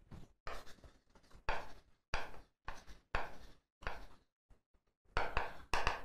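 Chalk writing on a blackboard: a run of about ten short, scratchy strokes with brief gaps between them, coming closer together near the end.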